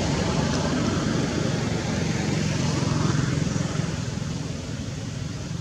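A low, steady engine hum that fades toward the end.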